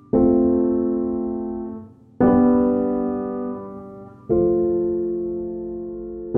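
Background piano music: slow chords struck about every two seconds, each ringing and fading away before the next.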